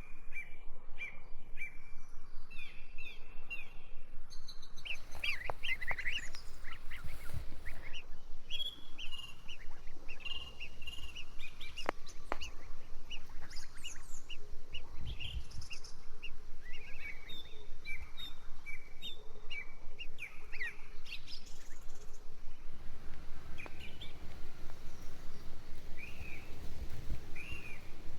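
Several birds chirping and calling, with many short overlapping chirps and trills, and a few low thuds underneath.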